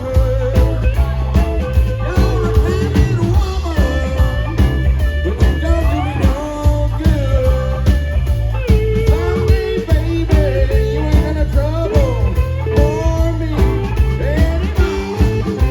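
Live blues-rock band playing, an electric guitar lead with bending, gliding notes over bass and a steady drum beat.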